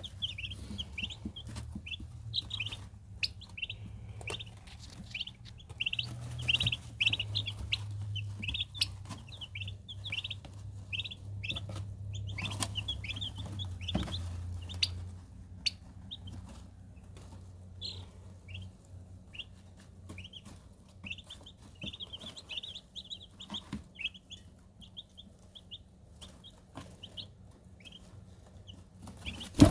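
Barred Rock chicks and a turkey poult peeping in a brooder: many short, high, repeated peeps, busiest in the first half, over a low hum.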